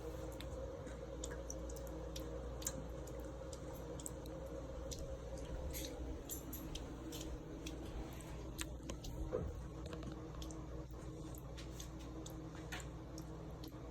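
Thin stream of tap water trickling into a sink, with irregular small ticks and splashes over a steady low hum.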